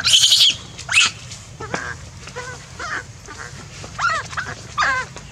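Infant macaque crying: a loud, shrill screech at the start and another about a second in, then a string of shorter squealing cries that bend up and down in pitch.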